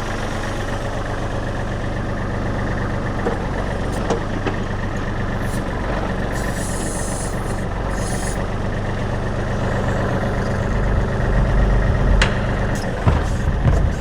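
Kubota L35 backhoe's diesel engine idling steadily, with brief hissing about halfway through and a few light metallic clicks. The low rumble grows louder over the last few seconds.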